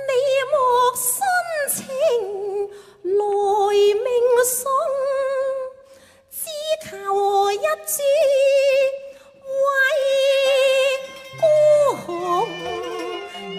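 A woman sings a slow Cantonese opera (yuequ) melody in long drawn-out notes with wide vibrato, pausing briefly between phrases, over quiet instrumental accompaniment.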